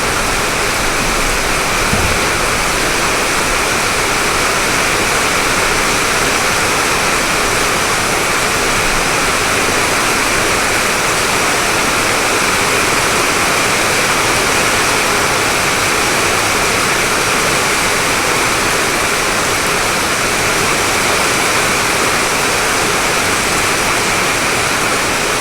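Heavy downpour drumming on a tin roof, a dense, steady rushing that does not change.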